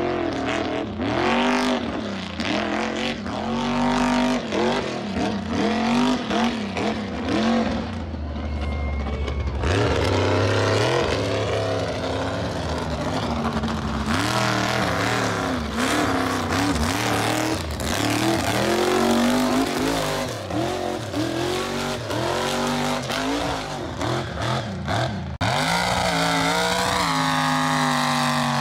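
Mega truck's engine revving hard, its pitch climbing and falling again and again as it is pushed through mud and over obstacles. The sound jumps abruptly several times as separate clips are joined.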